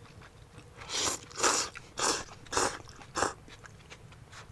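Soba noodles being slurped from a bowl: five short slurps in quick succession, starting about a second in.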